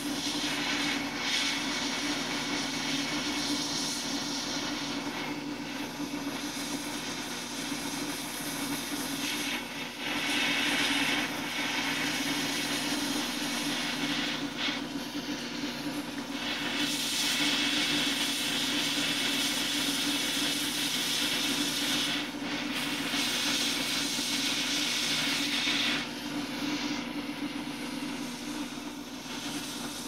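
Hot air rework station blowing: a steady hiss of air over a constant fan motor hum, the hiss swelling and falling back several times, as it heats the flux-coated solder joints of a micro USB port on a circuit board.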